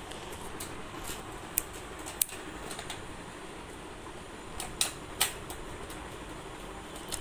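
Sharp plastic clicks and taps as a battery pack and its cover are fitted into the underside of a toy remote-control car, a few single clicks with two close together about five seconds in, over a steady background hum.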